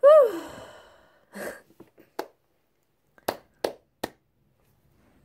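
A woman's loud voiced sigh that rises briefly then falls in pitch and trails off, followed by a short breath and four sharp taps.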